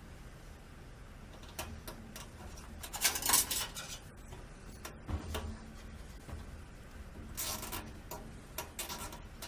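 Wires and cable ties being handled against a metal computer case: scattered clicks and rustles, a louder rattle about three seconds in, a knock around five seconds, and another rattle later on.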